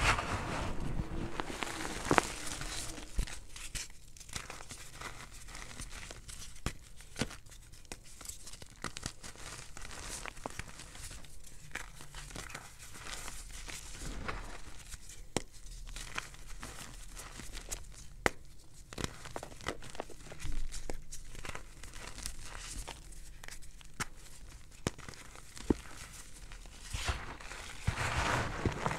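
Fingers crushing and pressing through a tub of crumbled gym chalk and cornstarch: a continuous crunching crackle of breaking powdery chunks, with sharp snaps scattered throughout and a denser, louder stretch near the end.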